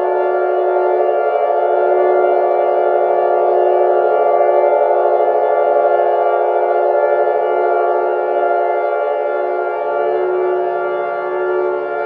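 Fake Emergency Alert System alarm: a loud, steady siren-like drone of several tones held together, with no rise or fall in pitch.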